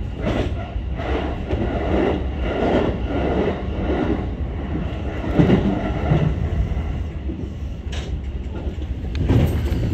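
Keihin-Tohoku line E233-series electric train heard from its front car, running with a steady rumble and wheels clattering over rail joints and points, with a louder knock about five seconds in.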